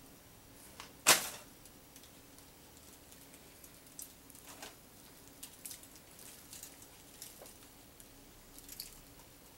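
A person eating a sub sandwich: faint chewing with scattered small clicks and smacks, and one sharp, loud knock about a second in.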